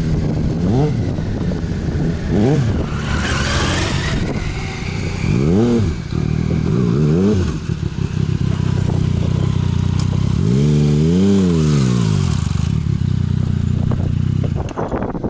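Yamaha MT-09 three-cylinder engine through an Akrapovic exhaust, running near idle with several short throttle blips and one longer rev about eleven seconds in; the engine sound drops away near the end.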